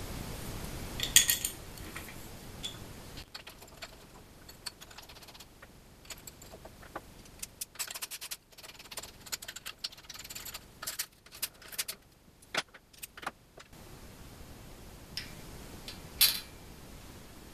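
Small metal hardware clinking and tapping: bolts, a hex key and a metal corner plate knocking against an aluminium extrusion frame as the plate is bolted on. Irregular sharp clicks throughout, busiest in the middle, with louder clinks about a second in and near the end.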